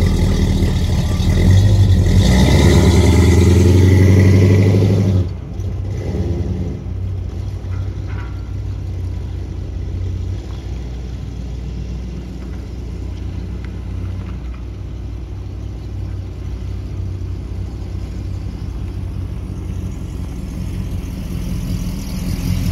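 1967 Pontiac GTO's 400 cubic-inch V8 running through its exhaust as the car pulls away, loud for the first five seconds. It then drops suddenly to a quieter, steady engine sound as the car drives at a distance, and grows a little louder again near the end.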